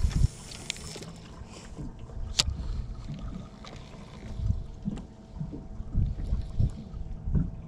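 Wind buffeting the microphone in uneven low gusts, with a single sharp click about two and a half seconds in.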